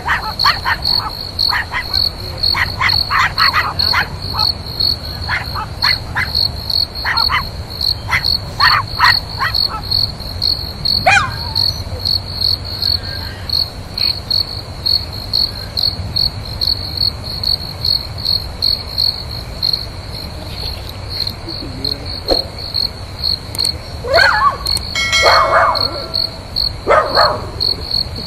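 An insect chirping without pause in a high, steady pulsing rhythm of a few pulses a second, with groups of short squeaky calls now and then, one gliding down in pitch about a third of the way in.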